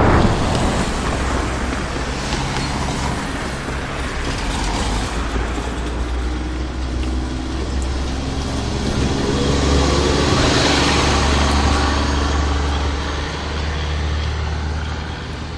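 Car engines running and road traffic, a steady low engine hum with a vehicle growing louder as it passes about ten seconds in. It opens on the fading tail of a loud bang.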